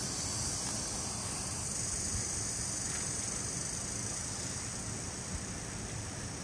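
Steady, high-pitched chirring of insects, with a low background rumble underneath.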